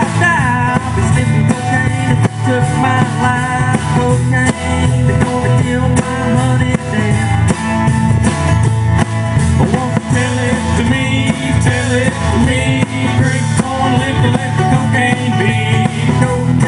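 A live country band playing: acoustic guitar, upright bass, banjo and drums.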